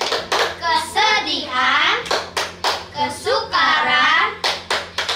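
Children singing a song together while clapping their hands along with it.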